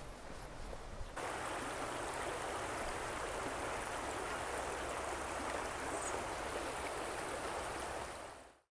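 Stream water babbling steadily. It comes in abruptly about a second in and fades out near the end.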